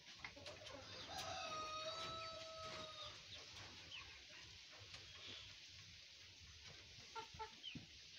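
A rooster crowing once, faintly: one long call of about two seconds starting about a second in. A few short faint calls near the end.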